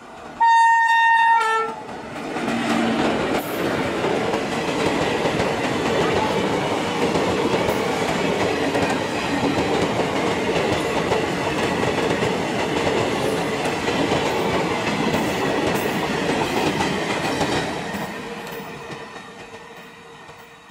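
WAP-4 electric locomotive sounds a short, loud horn blast about half a second in, changing note briefly as it ends. Then the passenger train passes at speed with a steady rolling rumble of coaches and wheel clicks over the rail joints, fading away over the last few seconds as it recedes.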